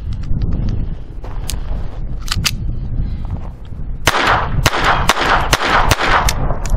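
A Beretta 21A Bobcat .22 LR pocket pistol is fired in a fast string of about eight shots, roughly three a second, over about two and a half seconds. A few light clicks come first as the pistol is handled.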